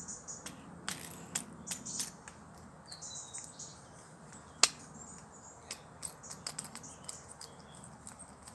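Light metallic clicks and clacks of a Remington 700 bolt being handled in a bolt stripdown tool, with one sharp click about four and a half seconds in.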